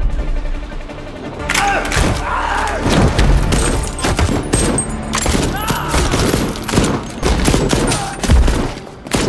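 Action-film shootout soundtrack: gunshots and heavy thuds of blows following one another in quick succession, with music under them.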